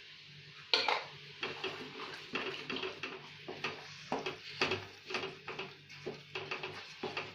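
Wooden spatula stirring thick mashed aubergine mixture in a coated frying pan: a string of short scrapes and knocks against the pan, about two a second, starting about a second in.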